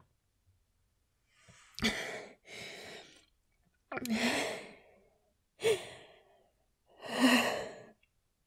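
A woman breathing heavily: five sighing breaths about a second or so apart, some with a little voice in them.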